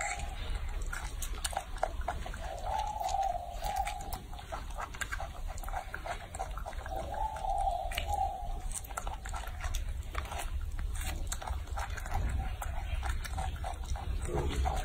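Baby macaque biting and chewing an orange, with many short wet clicks, and two short animal calls about three and seven seconds in.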